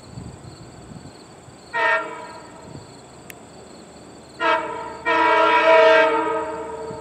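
Long Island Rail Road train horn on a leading C3 cab car, sounding a short blast about two seconds in, then a short blast followed by a long one, as a grade-crossing warning. The horn sounds as a chord of several tones.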